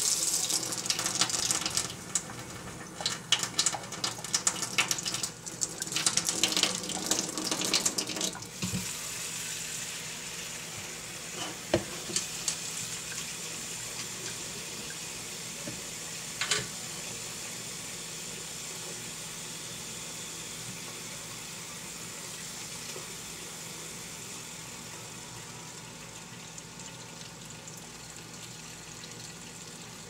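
Kitchen faucet running into a stainless-steel sink. For about the first nine seconds the stream splashes irregularly as hands work under it. After that it settles into a steady flow into a cup, with a couple of light knocks.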